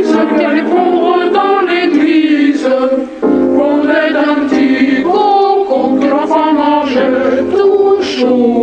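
Music: several voices singing together, choir-like, with a low bass line joining about three seconds in.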